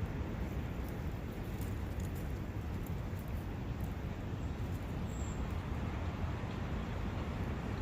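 A brook running: a steady, unbroken rush of water noise, heaviest in the low end.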